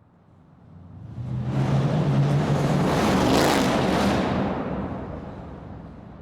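Muscle car engine rumbling past in a large reverberant room: it builds up over about two seconds, is loudest in the middle, then fades away.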